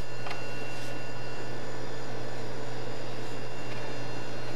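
Steady low hum with an even hiss, like a ventilation fan running, and a faint tick or two near the start.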